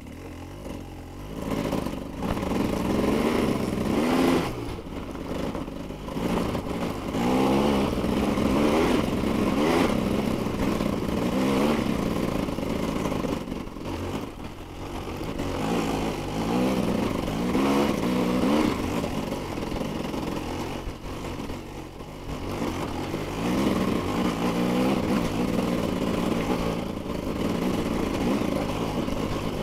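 Dirt bike engine running under load, its revs rising and falling again and again as the throttle is worked over rough, rocky trail.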